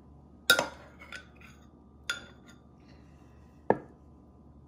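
Metal spoon knocking against a mixing bowl as melted butter is spooned in: four sharp clinks with a short ring, irregularly spaced, the first about half a second in the loudest.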